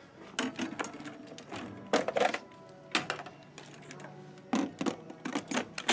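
Hands handling plastic packaging and equipment parts: irregular crinkling and light clattering clicks, loudest about two seconds in.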